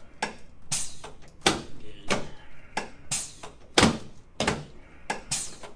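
Sharp knocks from a chiropractic treatment table, repeated about once every two-thirds of a second in a loose rhythm, as the patient is worked through side stretches.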